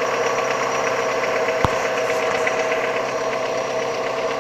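Opel Vectra C's Z22SE 2.2-litre four-cylinder petrol engine idling with a steady, rapid knock from the top end, which the owner likens to a hydraulic valve lifter on the exhaust camshaft and says is not the newly replaced timing chain. A single sharp click comes about a second and a half in.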